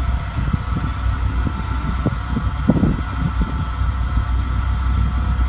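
Swamp buggy's engine running steadily, hooked to a tow strap to pull a stuck pickup from mud, with a steady whine over a low drone and a few short knocks about halfway through.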